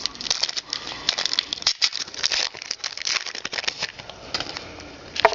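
Trading cards and their pack being handled: rapid, crisp rustling and clicking of card stock, busiest in the first three seconds, with one sharp snap near the end.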